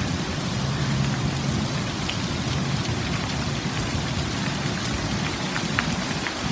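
Steady hiss of light rain falling on pavement and leaves, with a faint low hum underneath in the first half.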